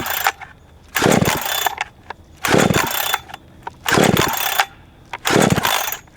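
Budget gas chainsaw's recoil starter cord pulled five times, about one pull every second and a half, each pull a short rising whirr; the engine does not fire. The saw came with its on/off switch button missing.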